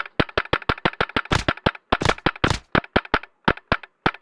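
Airsoft rifles firing: a rapid, uneven string of sharp shots, dozens in all, with a few short pauses.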